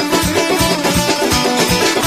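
Saz playing a fast Azerbaijani instrumental dance tune over a steady, quick beat.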